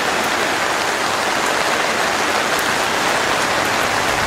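Torrential rain pouring down steadily, a dense, even hiss of heavy rain drumming on the ground and surfaces.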